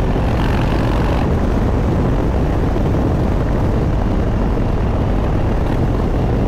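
2021 Harley-Davidson Breakout's V-twin running steadily on the road through aftermarket exhaust pipes, with wind rushing over the microphone.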